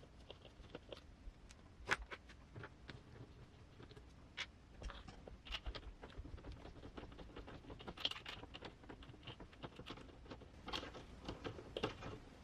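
Faint, scattered clicks and taps of small plastic and metal parts being handled, as hands work on an RC crawler's wheel and axle hub.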